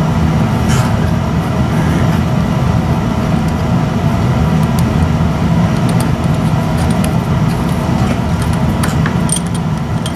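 A steady low mechanical hum, with a few light clicks and taps from hands working at a small carburetor.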